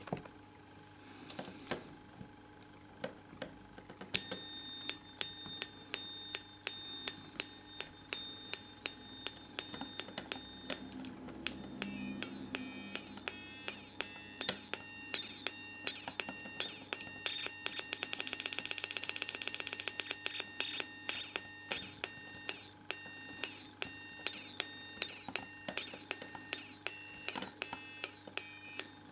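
Velleman MK134 steam-train sound kit playing through its small loudspeaker. Instead of steam chuffs it gives shrill electronic beeps, a little under two a second, starting about four seconds in. From about twelve seconds in, falling chirps come in with the beeps. This is the kit not working as it should.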